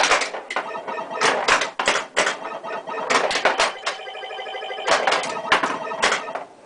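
A 1978 Bally Star Trek pinball machine in play: a busy run of sharp clacks from flippers, bumpers and scoring switches, mixed with electronic beeps as points score. A steady electronic tone sounds from about four to five seconds in.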